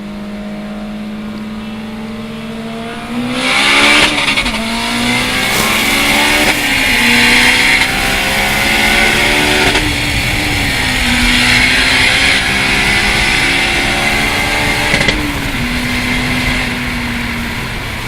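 Car engine held at a steady speed, then accelerating hard at full throttle from about three seconds in, the pitch climbing and dropping back at each of several upshifts, with a loud hiss over it; near the end it lifts off and settles to a steady tone.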